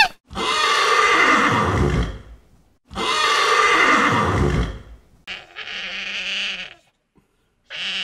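An animal calling: two long, loud calls of about two seconds each, then a quieter, higher call about five seconds in and another beginning near the end.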